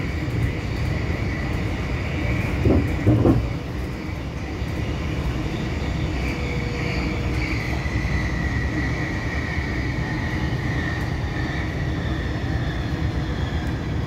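Light-rail tram running, heard from inside the passenger cabin: a steady rumble with two short knocks about three seconds in, and a high whine that slowly falls in pitch through the second half.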